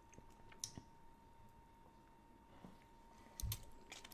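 Near silence with a few faint clicks, and a soft low thump about three and a half seconds in.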